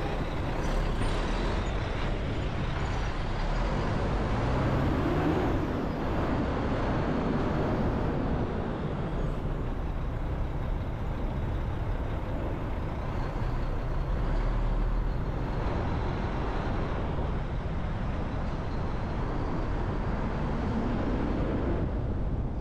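City road traffic heard while driving: a steady rumble of engine and tyre noise. An engine rises and falls in pitch about five seconds in, and again near the end.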